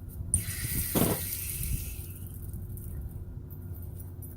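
Water hissing and gushing out of a fully opened spigot as the house's plumbing drains after the main supply is shut off. It starts suddenly, surges at about a second in, and dies away after about two seconds as the lines empty.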